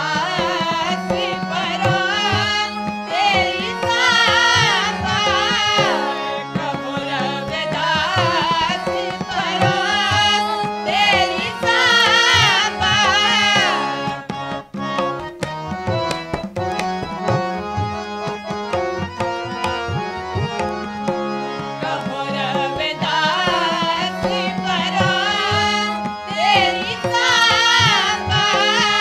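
Sikh simran kirtan: voices singing in phrases over the steady drone and melody of two harmoniums, with tabla keeping the beat. The singing falls away for several seconds past the middle while the harmoniums and tabla play on, then the voices come back.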